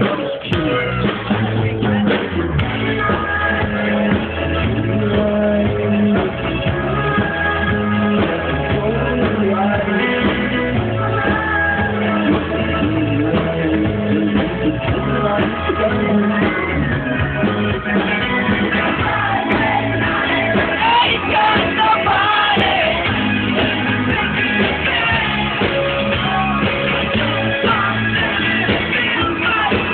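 Live indie rock band playing a song with a sung lead vocal over guitar and keyboards. The sound is dull, with the high end cut off.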